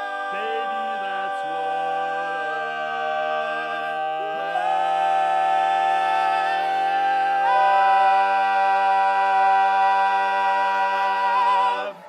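Male barbershop quartet singing a long-held final chord a cappella. The chord shifts twice, swelling louder partway through as the top voice steps up, then all four voices cut off together at the end.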